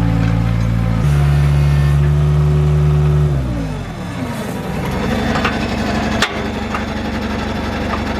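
New Holland LX565 skid steer's diesel engine running at raised revs, then winding down to a steady idle about three and a half seconds in. A single sharp knock near the middle.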